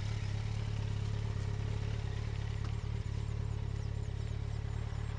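Motorcycle engine running steadily at an even low pitch, close by, then cutting off suddenly at the very end.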